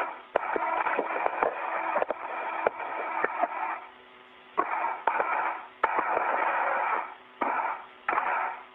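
Static hiss on a space-to-ground radio channel with no one talking. It cuts out and comes back several times, with sharp clicks as the channel keys on and off.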